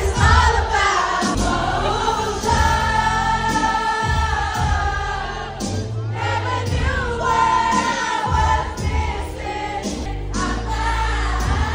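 Amplified R&B concert music over a venue sound system: a sung melody over a strong bass line, with many audience voices singing along.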